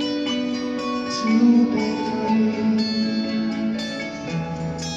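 Live band music: a slow ballad passage with guitars, held notes and no singing.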